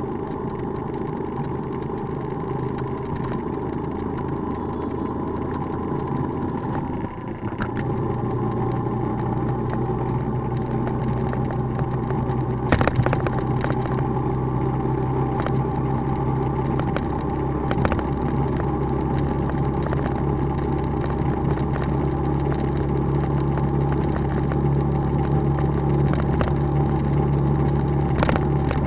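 Motorbike engine running steadily while riding, heard from the bike itself, with road noise. The engine note steps up about seven seconds in and then holds, with a brief knock about 13 seconds in.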